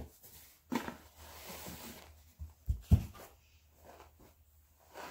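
Clothing and packaging rustling as garments are handled and pulled out of a box, with a couple of dull thumps near the middle, the second one the loudest.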